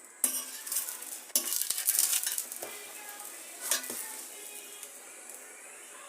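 A utensil clinking and scraping against a frying pan for about two seconds, with one more knock a little later, over the faint sizzle of a pancake frying.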